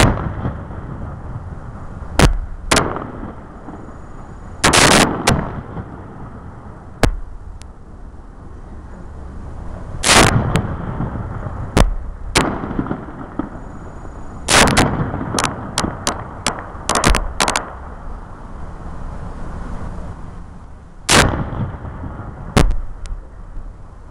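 Aerial fireworks shells bursting: many sharp bangs at irregular intervals, some single and some in quick clusters, with the densest run of rapid cracks about fifteen to seventeen seconds in. A steady low background noise runs under the bangs.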